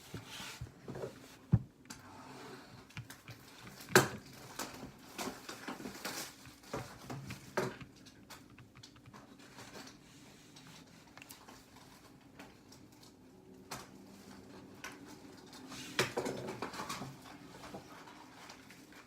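Handling of a cardboard trading-card box: scattered knocks and light rustling as it is turned and worked on, with sharp knocks about a second and a half in and again at four seconds, and more rustling near the end.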